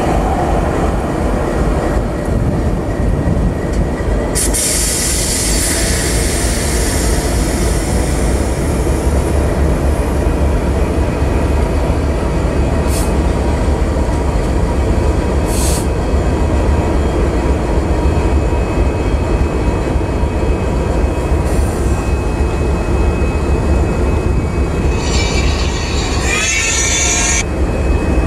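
Diesel engine of Union Pacific GE AC4400CW locomotive 6043 running loudly close by as the locomotive creeps forward, a steady deep rumble. High hissing and squealing sounds from the wheels and brakes come in about four seconds in and again near the end.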